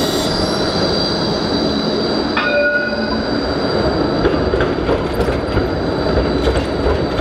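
Tram wheels squealing on the rails, a steady high-pitched squeal over continuous street noise, with a brief ringing note about two and a half seconds in.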